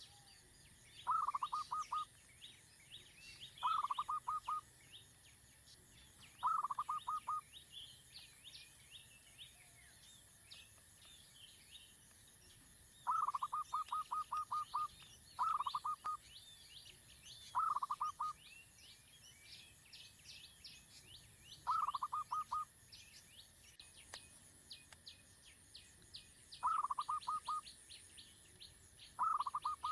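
A bird call in short rattling bursts, each a quick run of six to eight notes, repeated about nine times at irregular gaps. Behind it, many faint high bird chirps and a steady high insect hiss.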